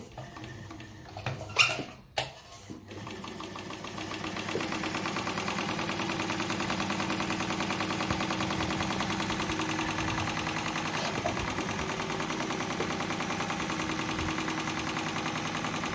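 Frister & Rossmann sewing machine running steadily to wind a bobbin, with a fast, even rhythm that starts about three seconds in. It is preceded by a few clicks and a knock from handling the machine.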